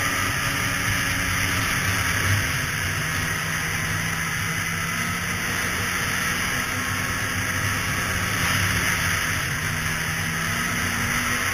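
Polaris two-stroke snowmobile engine running at a steady trail cruise under a strong, even hiss of wind and track noise.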